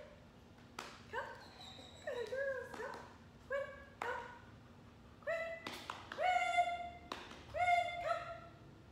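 A dog barking repeatedly: about a dozen short, sharp barks and yelps, more and louder in the second half.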